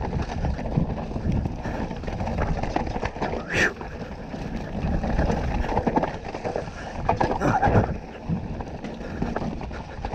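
2018 Canyon Torque CF9 Pro mountain bike descending a trail, heard from a helmet chin-mounted camera: tyres rolling over dirt and rocks with constant small knocks and rattles from the bike, and wind on the microphone.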